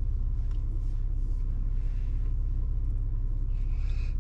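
Holden VY Commodore's 3.8-litre Ecotec V6 engine running at steady low revs, heard from inside the cabin as an even low rumble.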